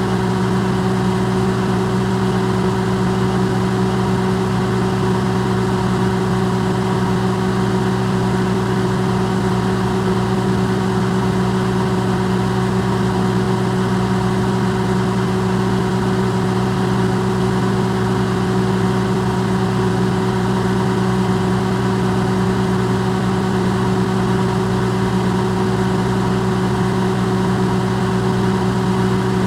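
Electrolux microwave oven running, recorded close up and amplified: a steady, unchanging hum of several low tones over an even whir.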